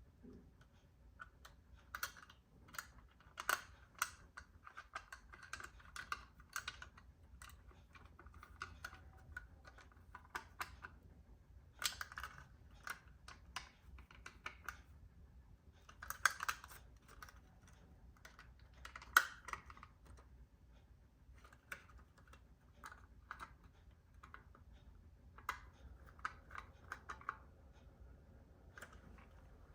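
Light clicks and taps in irregular quick clusters, with short pauses between them.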